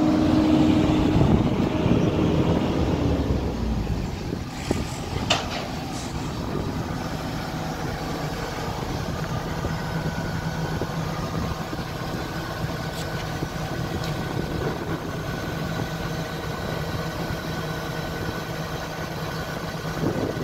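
Hyundai 140LC-7A tracked excavator's diesel engine running; its pitch drops about three seconds in and it then idles steadily. A few light clicks come a little after that.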